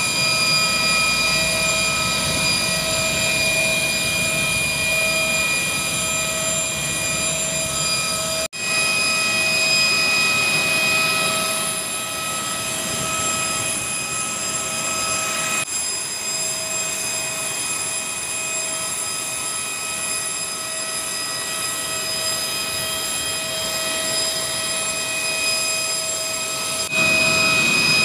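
Jet airliner engine noise, a steady rush with a high steady whine over it. It breaks off for an instant about eight seconds in and again midway, and grows louder near the end.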